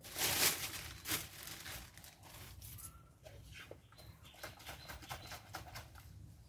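A plastic bag rustling and crinkling as it is handled, loudest in the first second, then faint scattered clicks and light rustles.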